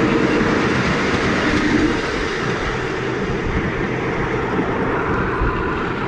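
Ride-on miniature train running along its track: a steady rumble and clatter of wheels on rails, heard from a passenger's seat. It is louder for about the first two seconds, while the train comes out of a corrugated-iron tunnel.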